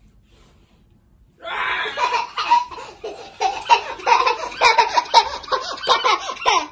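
A person laughing hard in rapid repeated bursts, starting about a second and a half in after a short quiet moment.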